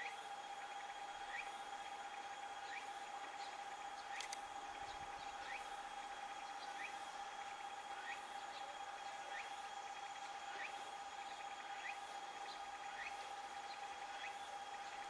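Insects calling in a summer evening outdoor ambience: a steady high drone with a soft chirp repeating evenly about every second and a half.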